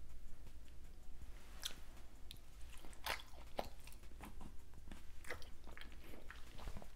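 A person chewing soft king crab leg meat dipped in Alfredo sauce, with many small irregular mouth clicks.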